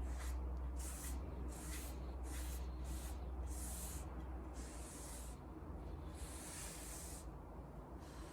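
Strokes of a hand tool on wood: quick short rasping strokes at first, then slower, longer strokes of about a second each.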